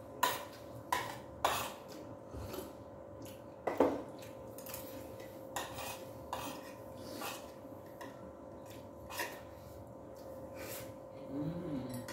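Metal spoons and forks clinking and scraping on plates during a meal, in short irregular taps, the loudest a little under four seconds in. A faint steady hum runs underneath.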